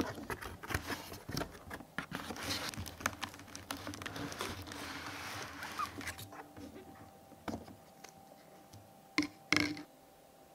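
Small objects being handled at close range: a rustling of packaging with many light clicks and taps, then two sharper knocks close together near the end.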